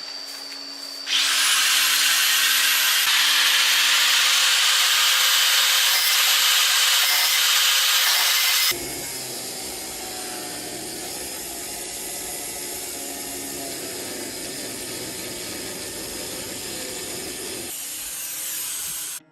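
A power tool running steadily in two stretches. A loud, high-pitched stretch starts about a second in and cuts off suddenly near the middle, then a quieter, lower-pitched stretch runs on until a sudden stop at the end.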